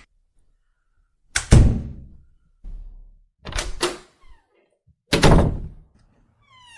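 A door being shut again and again: three loud thuds about two seconds apart, each with a quick double knock as the latch catches, and a softer bump between the first two.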